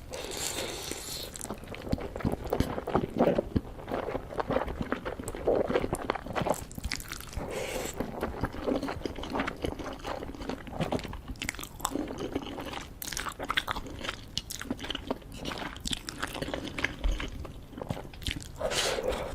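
Close-miked mukbang eating of spicy noodles with octopus tentacles: continuous biting and chewing, with many irregular sharp clicks and small crunches.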